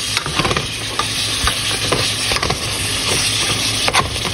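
Ground beef sizzling as it browns in a pot, stirred and broken up with a metal spoon that knocks and scrapes against the pan a few times.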